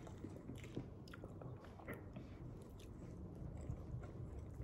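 Quiet close-up chewing and biting of fried chicken and rice, with small scattered clicks of mouth and fingers.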